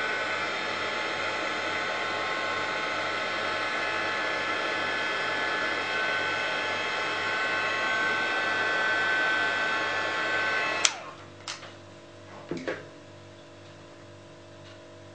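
Embossing heat gun blowing steadily with a fan-motor whine as it melts the coating on a paper cut-out. About eleven seconds in it cuts off suddenly with a click, followed by a few light knocks.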